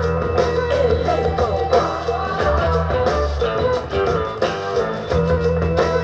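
Guitar-led rock music with a steady bass line, played back through a pair of Ocellia hi-fi loudspeakers.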